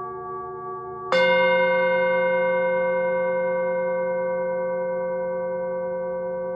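A singing bowl struck once about a second in, over the lingering ring of an earlier strike; its tones ring on with a slow wavering and fade gradually.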